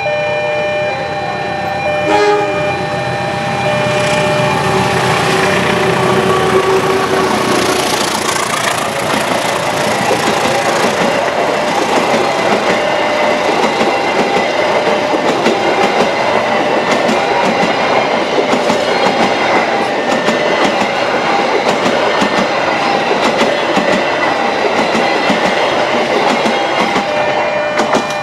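A train passing close by: its horn sounds as it approaches, then the wheels clatter over the rail joints as a long run of cars rolls past.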